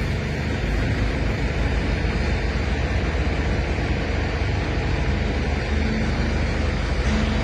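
Isuzu FTR concrete mixer truck's diesel engine running steadily.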